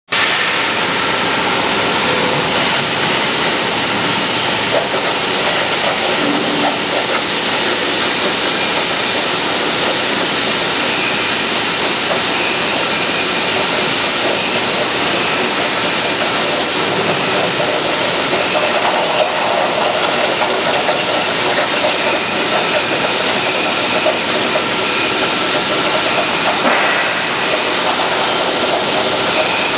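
CNC cutting torch cutting steel plate over a water table, giving a loud, steady hiss.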